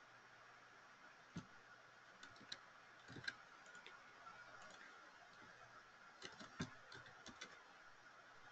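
Faint, scattered clicks of a computer keyboard and mouse, with a quick run of keystrokes between about six and seven and a half seconds in, over a faint steady hum.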